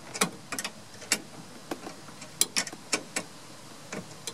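Wrench working the 13 mm bolts that hold the steering shaft to the firewall: a string of irregular, sharp clicks and clinks, about a dozen over the few seconds.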